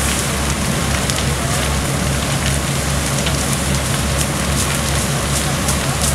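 A fully involved wood-frame house fire burning, with many sharp crackles and pops from the burning timber over a dense steady noise. A steady low hum runs underneath.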